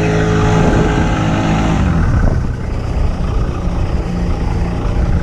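Outboard motor pushing the sailboat under power, its note sliding down as it is throttled back about two seconds in, then running on at a lower steady speed.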